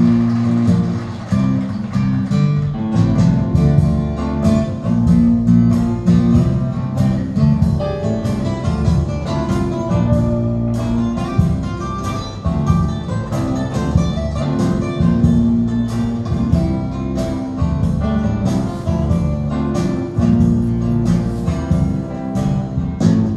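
Recorded music with plucked guitar and deep sustained bass notes, played back through Focal Sopra N°2 floor-standing loudspeakers driven by a Mark Levinson No 5805 integrated amplifier.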